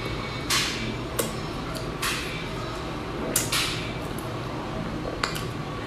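Close-miked mouth sounds of chewing soft bread: about five sharp, wet smacks and clicks at irregular intervals, over a steady low hum.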